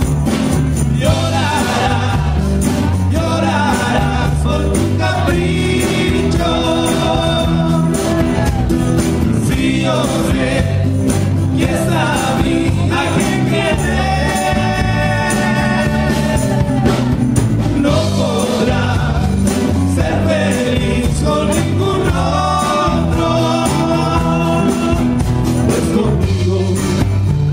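Live rock band playing a song: drum kit, guitars and bass, with a man singing.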